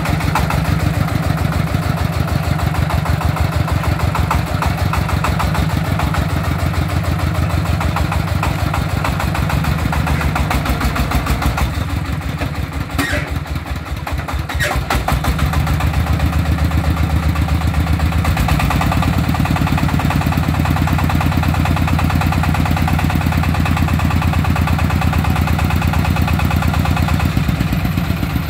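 Single-cylinder diesel engine of a homemade công nông three-wheeled truck chugging with a fast, even beat as the truck creeps along the lane. About halfway through, the engine note dips for a few seconds with a couple of sharp clicks, then it runs steady and a little louder.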